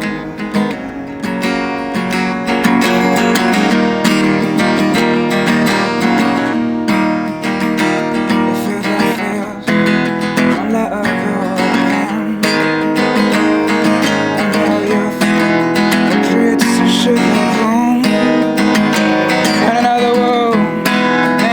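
Music: an instrumental passage of an acoustic song, carried by strummed acoustic guitar.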